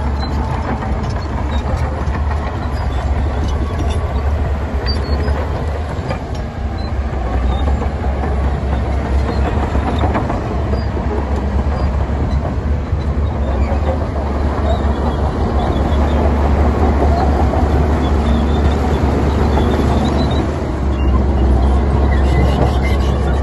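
Heavy diesel earthmoving machinery running steadily: a low engine drone with a constant clatter over it, getting a little louder about two-thirds of the way through.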